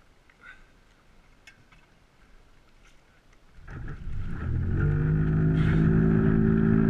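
A boat engine starting up about halfway through, then settling into a loud, steady idle.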